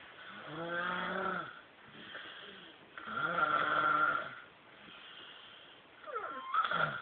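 A sleeping person snoring heavily. There are two long, buzzing snores about three seconds apart, then a shorter snore near the end that falls sharply in pitch.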